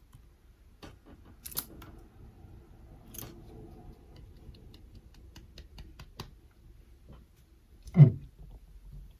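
Small clicks and handling noises of laptop parts and tools being worked on during MacBook Pro reassembly, with one heavy thud about eight seconds in.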